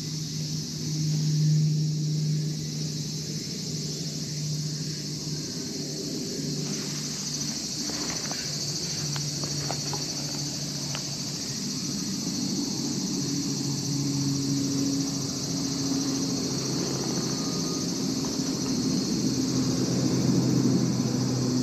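Tabby cat purring while being stroked: a low hum that breaks off and starts again every second or two, over a steady high buzzing of insects. A few faint clicks around the middle.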